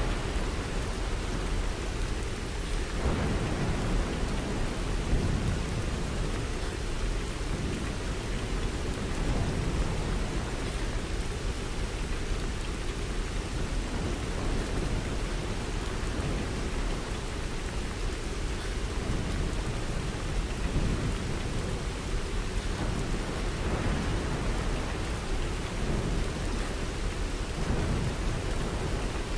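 Steady rain falling, with low rumbles of thunder swelling a few times.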